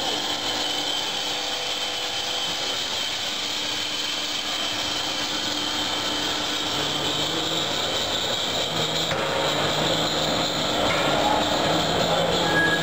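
Foam convoluting (egg-crate profiling) machine running: a steady mechanical hum with a hiss over it, getting a little louder in the second half.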